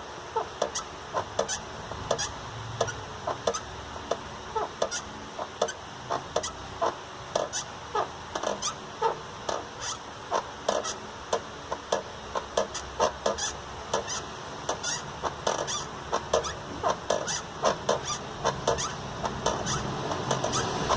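Toyota Etios 1.3 clutch squeaking when the pedal is pressed, short honking squeaks repeating a few times a second. The mechanic traces it to the clutch fork, where the release bearing's grease had dried out and the bearing was rubbing.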